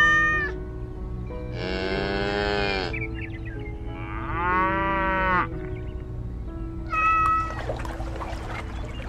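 Four animal calls, cat- and cow-like, over steady background music: short high calls at the start and about seven seconds in, and two longer, lower calls in between, the second one bending in pitch.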